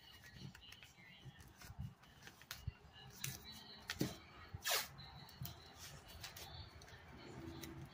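Tape being pulled off its roll and pressed onto a butcher-paper package, with faint paper crinkling and small taps; one sharp rasp of tape coming off the roll about five seconds in.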